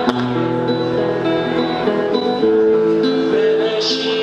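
Acoustic guitar played live, strummed and picked in sustained chords, with a man's singing voice coming in near the end.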